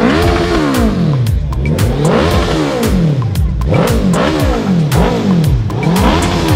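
Suzuki Hayabusa's inline-four engine, fitted with an aftermarket exhaust, revved hard while standing still, the revs rising and falling about five times in quick throttle blips.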